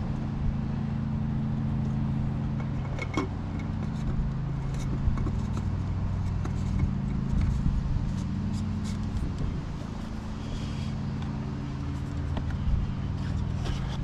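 A motor running steadily with a low, even hum, with a few light clicks and knocks of parts being handled in a car's engine bay, the clearest about three seconds in.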